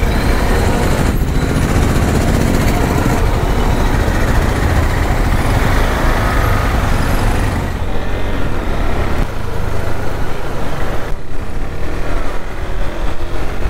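KTM Duke 390's single-cylinder engine running as the motorcycle rides along, a steady low rumble mixed with a rush of wind and road noise.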